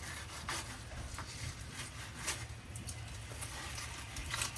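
Knife cutting the rib bones out of a hybrid bass fillet: scattered small scrapes and clicks of the blade through bone and against the cutting board.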